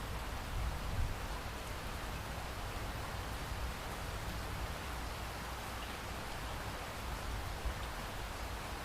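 Steady pouring rain: an even, unbroken hiss of falling drops with a low rumble underneath.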